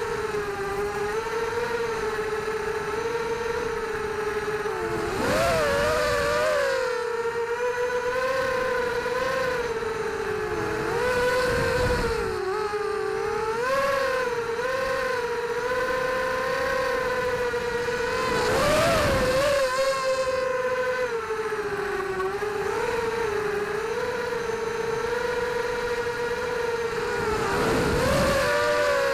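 Racing quadcopter's brushless motors and propellers whining steadily, heard from on board, the pitch wavering up and down with throttle. Four short surges of rushing noise come through the whine, the last near the end.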